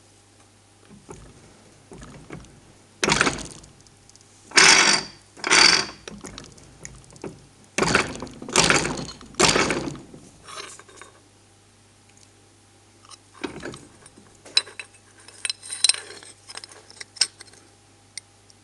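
No.4 hand fly press working on a 4 mm steel gate hinge: six heavy metallic strokes in the first ten seconds as the ram comes down on the hinge tabs to spread them apart. In the second half come lighter, scattered metal clinks as the steel hinge is handled and tried against steel box section.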